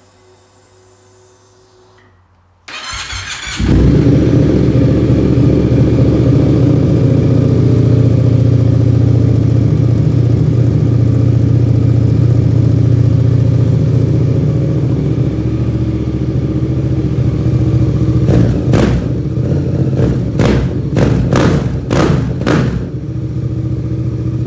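2015 Yamaha MT-07's parallel-twin engine breathing through a full race exhaust, cranked on the starter and catching a few seconds in, then idling loudly and steadily on a cold start. Near the end it is blipped in a quick series of sharp revs before dropping back to idle.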